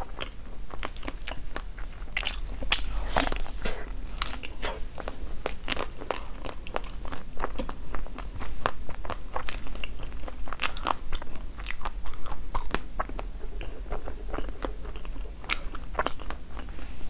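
A person chewing and crunching a bitten green-crusted food with a purple filling: a steady run of irregular crisp crackles and clicks.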